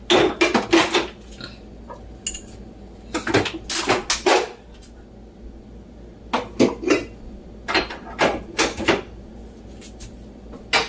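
Kitchen clatter: sauce bottles and dishes knocking and clinking in several short bursts spread a second or two apart.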